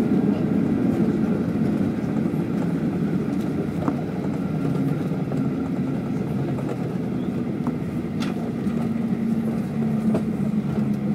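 Cabin noise inside a Boeing 737-800 on the ground after landing: the steady low rumble of its CFM56 jet engines and the rolling airframe, easing slightly, with a steady hum coming in about halfway through.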